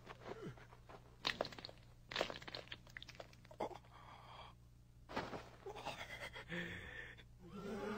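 Faint fight sound effects: a handful of short crunches and thuds, spaced about a second apart.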